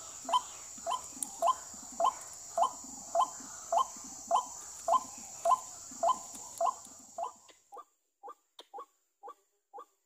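White-breasted waterhen calls played through a small portable speaker as a lure: a short rising note repeated evenly, a little under twice a second. A steady high hiss underneath stops about seven seconds in.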